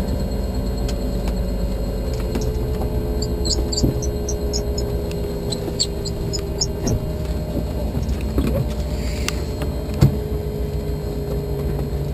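Light helicopter's engine and rotor running steadily on the ground, heard from inside the cockpit as a constant rumble with a steady hum. A few faint high chirps come about three to seven seconds in, and a single knock about ten seconds in.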